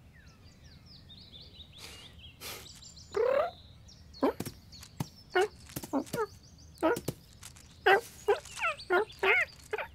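Cartoon cat laughing: a rising yelp, then a rapid run of short cackling cries from about four seconds in, after a few high bird chirps.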